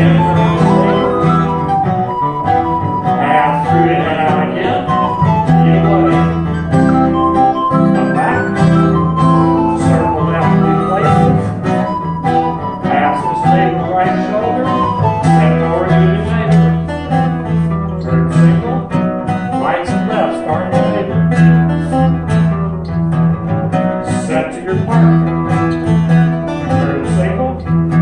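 Live acoustic folk band of bouzouki, guitar and recorder playing a lively traditional English country dance tune, with brisk plucked chords under a flowing melody.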